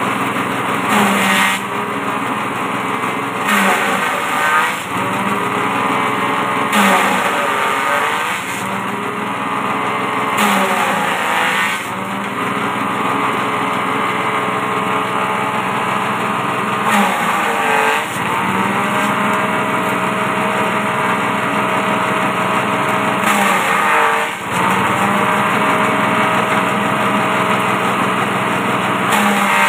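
Small petrol engine driving a forage chopper, running steadily, with a loud burst of chopping every few seconds as leafy stalks are fed in. Under the heavier loads the engine note sags briefly and then picks up again.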